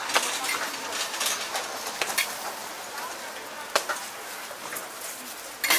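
Cooking utensils clicking and knocking at a hotteok griddle, a handful of sharp knocks spread through, over a steady hiss and faint background voices.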